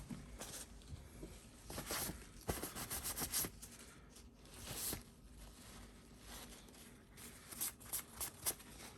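Faint handling noises: soft rustling and scraping with scattered small clicks, in two short clusters.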